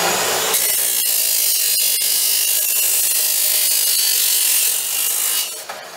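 DeWalt abrasive chop saw cutting through a steel tube. About half a second in, the spinning abrasive wheel bites into the steel with a loud, harsh grinding hiss that holds steady. Near the end the cut finishes and the motor runs on freely at a lower level.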